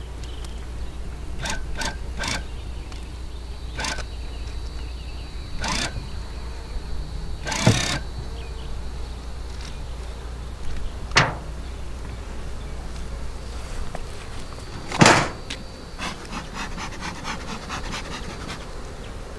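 A hive lifter raising stacked wooden beehive boxes off their bottom board: scattered knocks and clanks, the two loudest about eight and fifteen seconds in, over a faint buzzing of honeybees.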